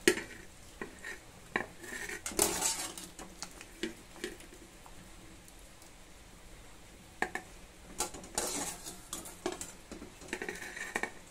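A wire-mesh skimmer clinking and scraping against a steel pot and a steel plate while lifting wet cauliflower florets out of hot water. It comes in scattered clatters with a quieter spell in the middle.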